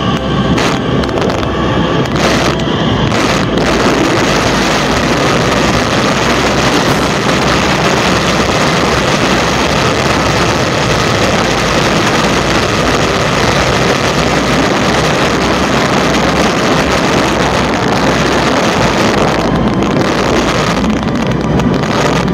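Loud, steady rush of wind buffeting the microphone, mixed with the whir of a zipline trolley running along its steel cable during a fast descent.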